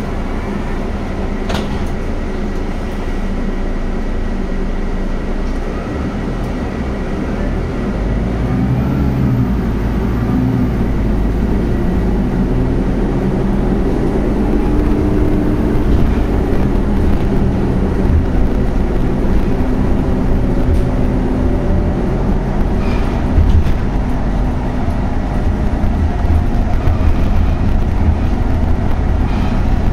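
Inside a Scania Castrosua New City articulated bus with a compressed-natural-gas engine and ZF Ecolife automatic gearbox. There is a sharp click near the start; about eight seconds in, the engine and drivetrain grow louder, their note rising and shifting in steps as the bus pulls away and gathers speed.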